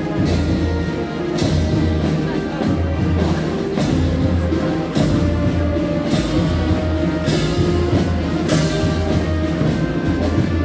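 Music with drums: a heavy, steady beat, with a sharp hit a little more than once a second, over sustained pitched instruments.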